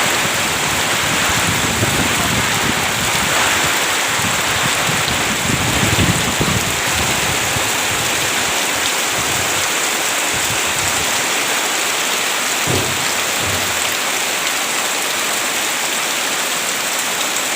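Heavy rain falling steadily, a dense even hiss, with a few brief low rumbles about a third of the way in and again past the middle.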